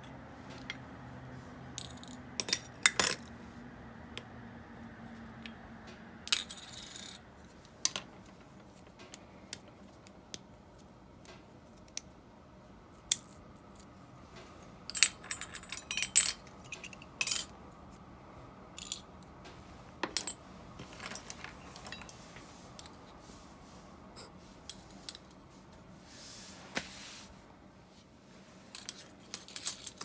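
Small metal parts of an Abu Garcia Ambassadeur 1500C baitcasting reel clinking and tapping against each other and against metal parts dishes as the reel is taken apart. Scattered sharp clinks in short clusters, busiest about halfway through.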